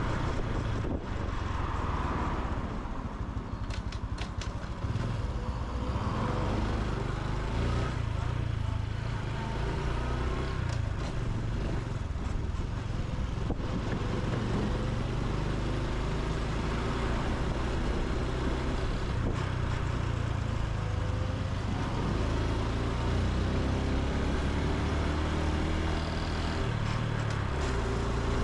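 Honda Super Cub C125's single-cylinder four-stroke engine and exhaust running steadily under way. The engine note shifts in pitch near the end.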